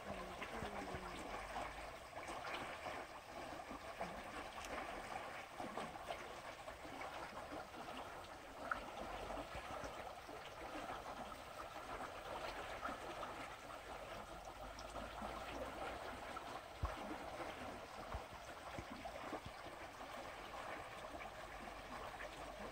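Shallow water trickling and splashing steadily over rocks in a small rocky stream. Two brief clicks stand out, one near the middle and one about two thirds of the way through.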